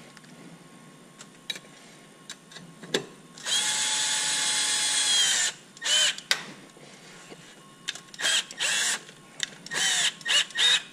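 Red cordless power driver running in the bolts of a battery hold-down bracket. A steady motor whine lasts about two seconds, then comes a string of short trigger bursts as the bolts snug down, with a few light clicks of metal before.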